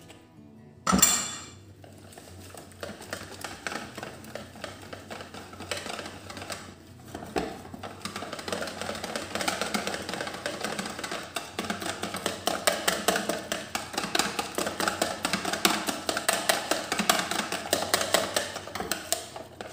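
Wire whisk beating egg-and-flour batter in a plastic bowl: a fast, steady clatter of strokes that gets louder and denser about eight seconds in. A short splash about a second in as a little water is poured into the batter.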